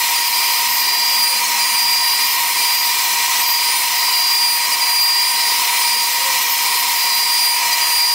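Gantry CNC router cutting framing ribs out of baltic birch plywood: a loud, steady whine and hiss from the spindle and bit in the wood, unchanging throughout.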